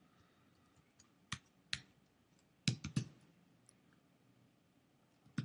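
Scattered keystrokes on a computer keyboard: separate sharp clicks, three in quick succession about three seconds in and one more near the end.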